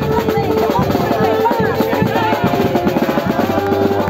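Live wind band of clarinets, saxophones, trumpets and a sousaphone playing a tune, with drums keeping a steady beat.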